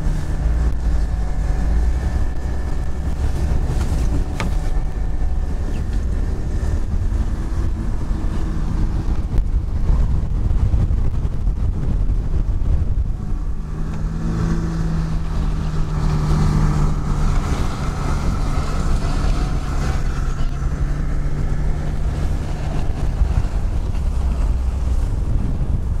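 A car engine running steadily, heard from inside the cabin, with blizzard wind rushing over the microphone. The engine hum gets a little stronger about halfway through.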